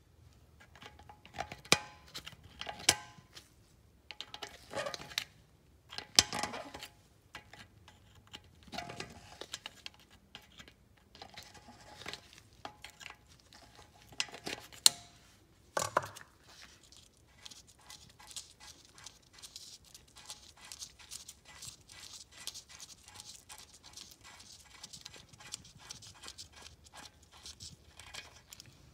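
Needle-nose pliers on the loose threaded stub of a drilled-out, seized wheel lug bolt in a BMW 550i F10 hub, turning it out: scattered sharp metal clicks and clinks. From about halfway through, a long run of quick, light ticks.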